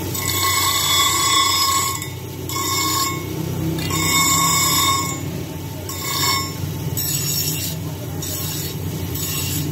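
Bench grinder motor running steadily while a steel blade made from an old file is pressed against the grinding wheel in short passes, each pass a high ringing screech. About seven passes, the first and third the longest.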